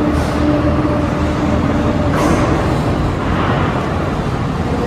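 35-tonne overhead travelling crane running while it carries a suspended railcar: a steady mechanical hum over a low rumble, with two short hisses about a quarter second and two seconds in.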